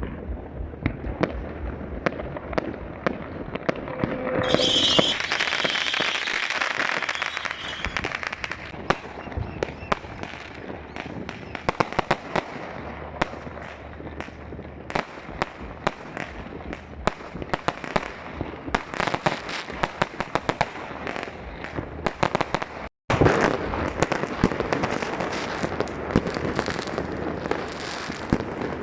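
New Year's Eve fireworks and firecrackers going off in quick succession, a steady run of sharp bangs and pops. About five seconds in comes a louder stretch of crackling and hissing lasting a few seconds.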